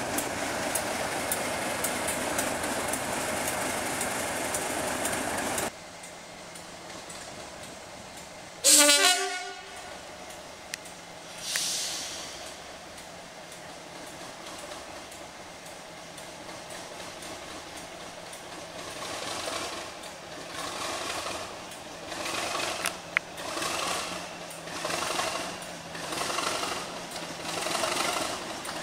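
English Electric Class 37 diesel locomotive's V12 engine running close by; after a cut, one short loud horn blast about nine seconds in. From about nineteen seconds the engine throbs in a slow pulsing rhythm, getting louder as the locomotive pulls its train toward the platform end.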